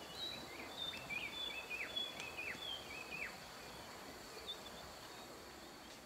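A bird calls a quick run of short, high notes, each ending in a sharp downward slide, for about the first three seconds, over a steady high-pitched trill of insects.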